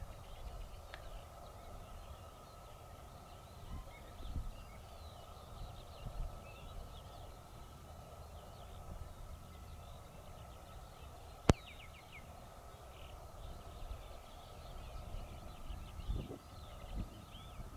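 Faint background birdsong, many short chirps, over a steady faint tone and occasional low rumbles. One sharp click about eleven seconds in is the loudest sound.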